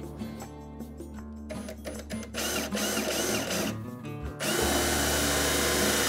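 Cordless drill running in two bursts, a short one about two seconds in and a longer, louder steady one from about four and a half seconds, drilling a hole for a cabinet door hinge. Background acoustic guitar music plays underneath.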